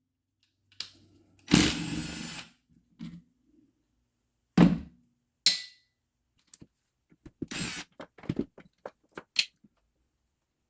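Hand work on the metal body of an air-over-hydraulic treadle pump during disassembly: a short loud burst of noise about one and a half seconds in, a sharp knock, then a metal clink that rings briefly. A second short burst follows, then a run of small clicks and taps from parts and tools.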